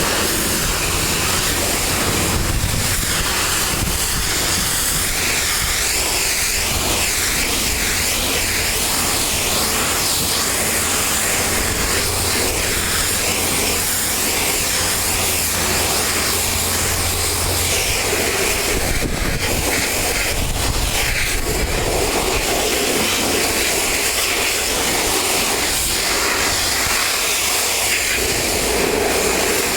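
Pressure washer spray hissing steadily at full force, with a low rumble underneath that weakens about two-thirds of the way through.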